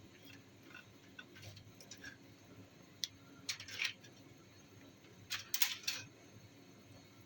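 Quiet kitchen handling sounds: a single sharp click about three seconds in, then two short clusters of clicks and light scrapes.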